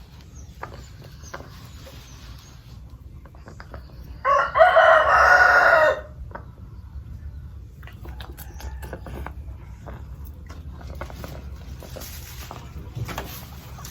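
A rooster crows once, loudly, for about two seconds, starting about four seconds in.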